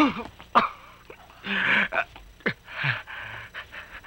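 A man's strained gasps and grunts during a scuffle, several short breathy bursts with a few sharp knocks between them.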